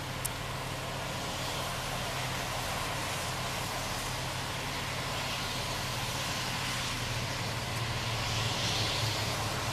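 Steady traffic noise: a constant low engine hum under a broad road hiss, swelling slightly near the end as a vehicle passes.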